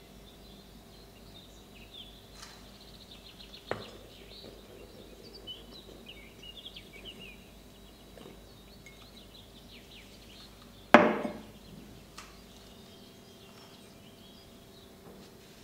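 Hard kitchenware knocking: a small sharp knock near four seconds and a loud knock with a short ringing decay about eleven seconds in. Faint bird chirping and a steady low hum run underneath.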